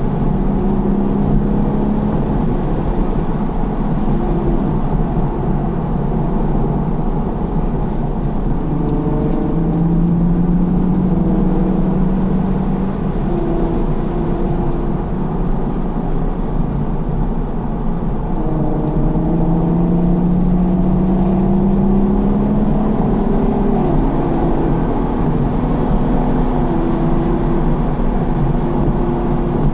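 A 2012 Porsche Cayman R's flat-six engine, heard from inside the car while it is driven hard on a race track. The engine note climbs in pitch several times as the car accelerates, over a steady low rumble of wind and road noise.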